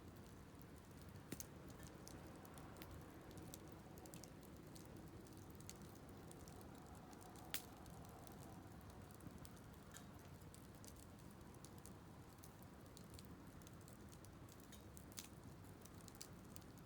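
Wood fire burning faintly, with scattered crackles and pops over a low steady hiss; the sharpest pop comes about halfway through.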